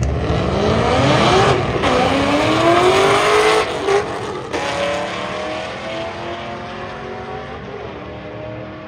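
Drag car accelerating hard down the strip, its engine pitch rising, dropping at gear changes about two and four seconds in, and rising again, then fading as the car pulls away.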